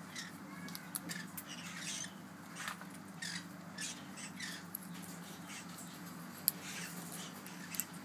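Ringneck parakeets giving short, soft squeaks and chirps at irregular intervals, over a steady low hum.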